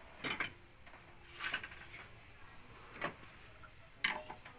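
Short metallic clinks and scrapes of a hand wrench, about a second apart, the last and sharpest with a brief ring as the wrench goes onto the camshaft sprocket bolt of a Suzuki F6A engine.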